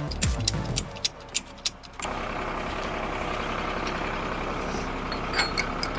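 Background music with falling sweeps ends within the first second. From about two seconds in, a Leyland DAF recovery truck's diesel engine idles steadily, with a few light clicks near the end.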